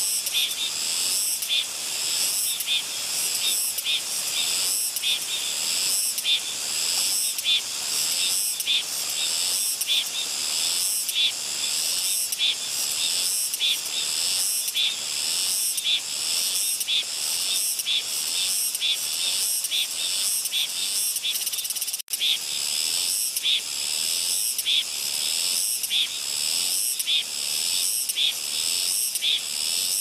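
A Leptosemia takanonis cicada (Soyosan cicada) singing a continuous, high-pitched buzzing song that pulses evenly about twice a second, with one brief break about 22 seconds in.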